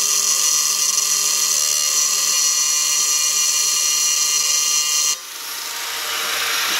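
Angle grinder with a cut-off disc running at a steady high whine as it slowly cuts through a clear plastic sheet. The whine stops abruptly about five seconds in, leaving a hiss.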